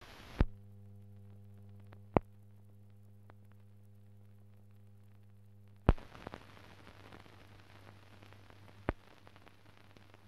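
No recorded sound, only transfer noise: a low steady hum broken by four sharp clicks. About six seconds in, the hum gives way to a faint crackling hiss.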